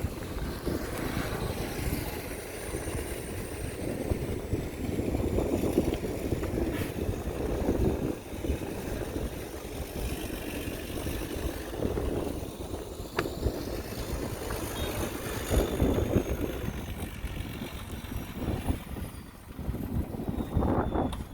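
Diesel engine of heavy earthmoving machinery running, a low rumble that swells and dips in loudness.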